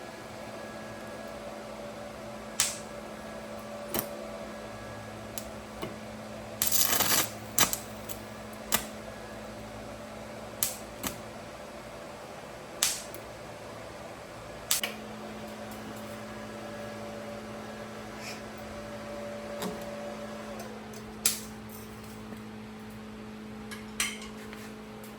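Steady electrical hum of a running portable stick welder, with scattered sharp metallic clicks and taps from metal being handled. About seven seconds in there is one short crackling burst.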